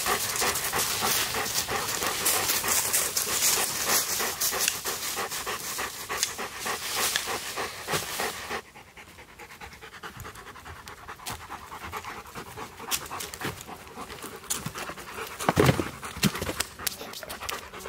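A dog panting hard, loud for the first half, then fainter after a sudden drop about halfway through. Near the end come a few knocks as pieces of firewood are dropped on the ground.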